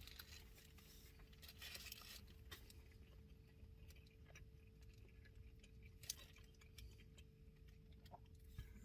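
Near silence: room tone with a faint steady hum and a few soft clicks and rustles.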